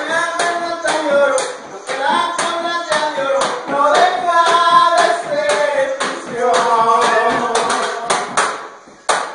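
Norteño-style music: a voice singing over button accordion and a steady beat of sharp knocks, fading near the end.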